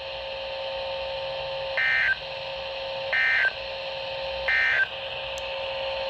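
EAS SAME header data tones from NOAA Weather Radio, heard through a weather radio's speaker. They come as three short bursts of warbling digital tones about a second apart, over a steady hum and hiss, marking the start of a new alert.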